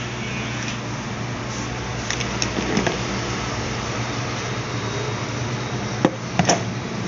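Electric hair clipper running with a steady buzz, with a few sharp clicks about two and six seconds in.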